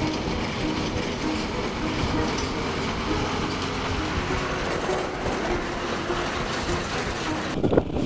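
A heavy Scania truck with a box trailer driving past on a dirt road: its diesel engine and tyres make a steady, even noise. The sound changes abruptly just before the end.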